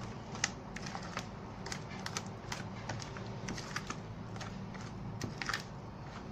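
A spatula stirring thick wheat-flour, sugar and water batter in a plastic bowl: irregular light clicks and taps, several a second, as it knocks and scrapes the bowl. A low steady hum lies underneath.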